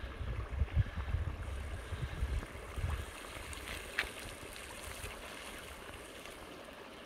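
Water running over a flooded concrete road crossing, a steady wash, with wind rumbling on the microphone for the first few seconds and a brief click about four seconds in.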